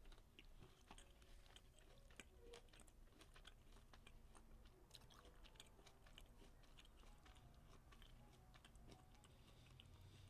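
Faint close-up chewing of a Nerds Gummy Cluster candy: a steady run of small, quick mouth clicks.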